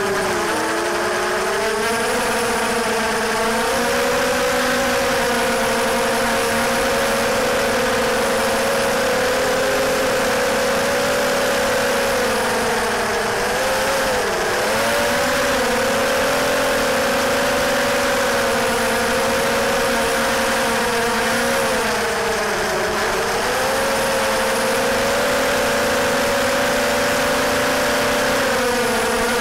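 Quadcopter's four brushless motors (DYS 1806 2300kv) spinning Gemfan 5040 propellers, a steady buzzing whine picked up by the onboard camera and heavily distorted. The pitch wavers with throttle, dipping briefly about a second in, around 14 seconds and around 22 seconds.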